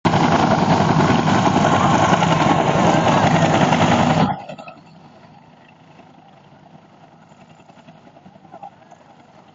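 Helicopter running close by, a loud steady rush of rotor and engine for about four seconds, then cut off abruptly, leaving a much fainter, more distant helicopter sound.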